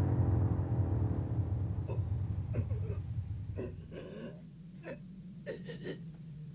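Low rumble of an explosion dying away, then a character's short, ragged gasps for breath, a dozen or so in uneven bursts.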